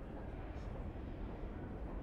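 New York City subway ambience: a steady low rumble with a hiss over it, from trains and the station.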